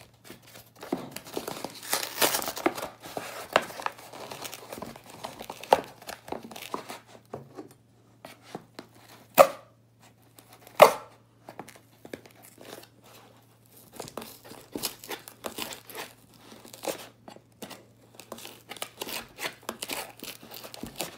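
Corrugated cardboard mailer being slit open with a flat metal blade and torn by hand: scraping, rustling and tearing of the cardboard, with two sharp knocks near the middle.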